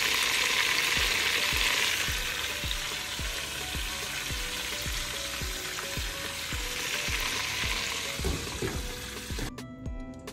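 Hot oil sizzling steadily as whole spiny lobsters deep-fry in a pot. Background music with a steady beat runs underneath, and the sizzle cuts off suddenly near the end, leaving only the music.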